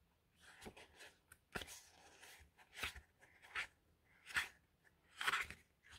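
Sheets of patterned designer series paper being leafed through and fanned by hand while being counted: a string of short, soft paper rustles and flicks, about one a second.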